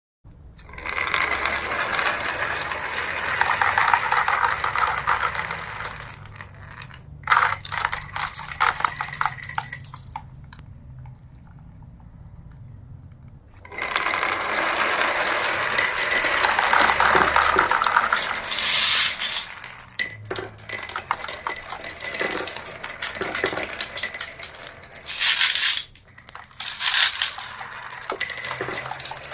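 Marbles rolling and clattering down a toy marble run track, in long rattling runs broken by separate clicks and knocks. There is a quieter pause about ten seconds in, before another long rolling run.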